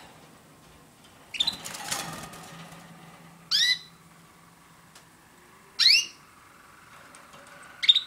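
Border canary giving three loud, short call notes about two seconds apart, each a quick curved sweep in pitch. A brief scratchy rustling burst comes about a second and a half in.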